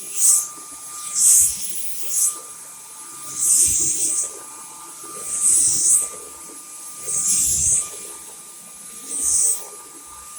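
Dyson V10 cordless stick vacuum running with a steady high whine, its airflow hissing in surges about every two seconds, with soft low knocks among them.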